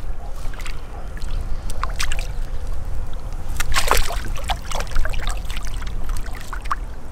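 Water splashing as a largemouth bass is released into shallow lake water and thrashes away. The loudest splashes come about four seconds in, with smaller ones after, over a steady low rumble.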